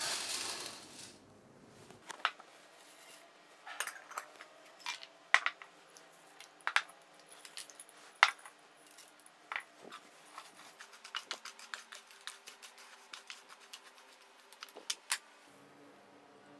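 Dry rolled oats poured from a ceramic bowl into a stainless steel baking pan, a short rushing patter, followed by a long run of scattered sharp clicks and clinks as nuts and seeds (almonds, cashews, pumpkin seeds) are tipped in and bowls knock against the pan.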